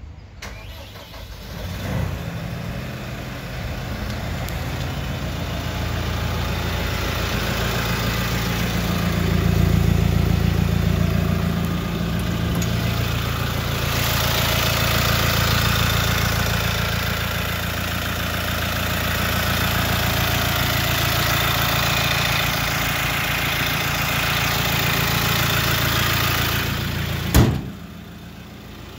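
Diesel engine of a Manitou MRT 1840 Easy Stage IV rotating telehandler starting about two seconds in and running steadily, with revs briefly rising a little before halfway. About halfway through it turns louder and brighter, and near the end a single sharp bang is followed by the engine sounding muffled.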